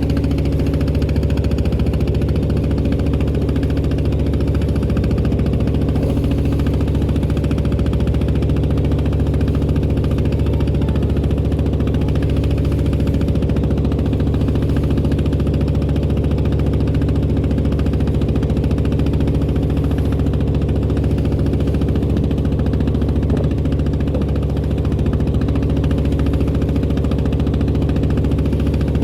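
Engine of a klotok, a small wooden motorboat, running steadily at an even speed with a low, knocking beat.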